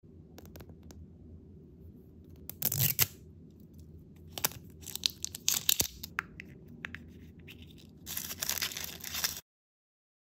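Plastic wrapping on an L.O.L. Surprise blind ball being torn and crinkled, in several short tearing rasps and sharp snaps. A longer stretch of tearing comes near the end, then the sound cuts off abruptly.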